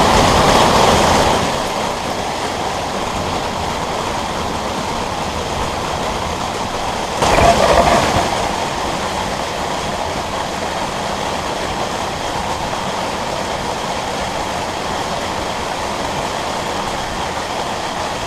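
Heavy rain falling steadily, swelling louder briefly at the start and again about seven seconds in.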